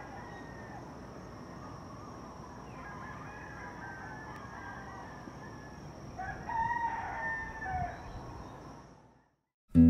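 Roosters crowing over a steady outdoor background with a thin steady high tone, the loudest crowing about six to eight seconds in. The sound fades out near nine seconds, and an acoustic guitar comes in loudly at the very end.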